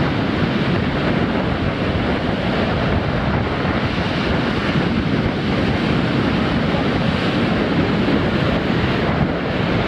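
Rough sea surf breaking and washing up a sandy beach, with strong wind buffeting the microphone.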